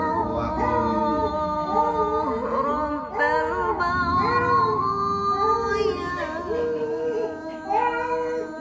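Singing: a high voice holding long notes of a slow melody, moving from note to note with short breaks between phrases.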